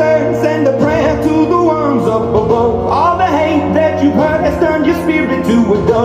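Pop song played back through a JBL Charge 4 portable Bluetooth speaker: held bass notes under a bending sung melody and a steady beat, with no clear words.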